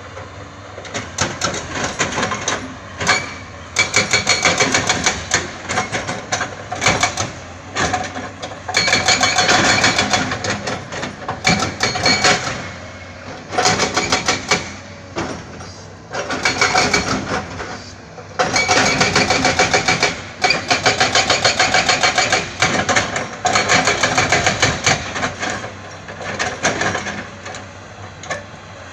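Heavy excavation machinery working rock: rapid metallic knocking and clattering in runs of one to three seconds, with short pauses between.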